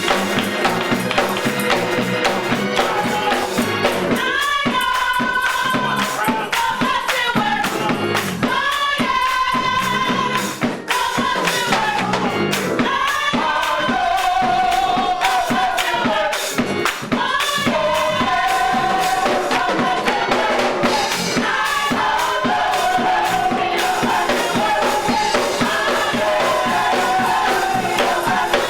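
Gospel choir singing held, wavering notes over a band, with a tambourine shaken in rhythm.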